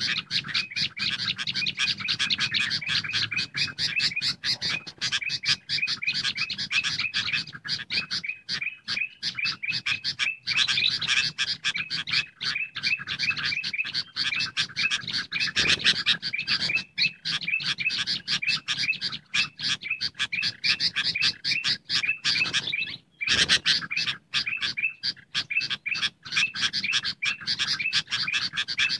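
Bird-lure (pikat) recording of bulbuls calling: busy, continuous chattering of agitated sooty-headed bulbuls (kutilang ribut) layered with golden bulbul (kutilang emas) calls, meant to draw wild birds in. There is a brief break about three-quarters of the way through.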